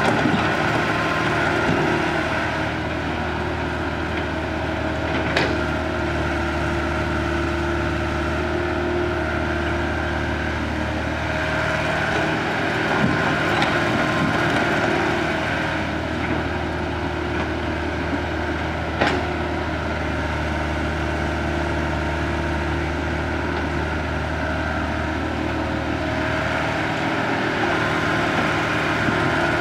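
Diesel engine of a Caterpillar E70 hydraulic excavator running steadily while it digs and loads soil into a dump truck, with two sharp knocks, about five seconds in and again near twenty seconds in.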